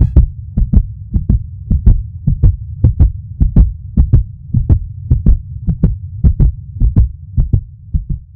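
Heartbeat sound effect: steady lub-dub double thumps at about a hundred beats a minute, over a low hum.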